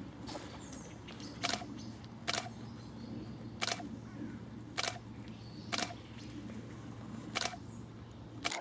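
Camera shutter clicking about seven times, at uneven gaps of roughly a second, over a steady low hum that stops near the end.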